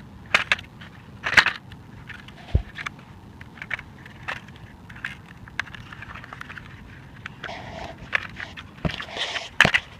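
Scattered plastic clicks, scrapes and rattles from handling a smashed camcorder and its loose broken parts, with a dull thump about two and a half seconds in.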